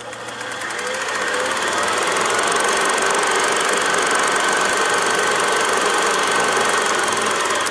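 Film projector sound effect: a fast, even mechanical clatter of rapid clicks over a hiss, swelling in over the first couple of seconds.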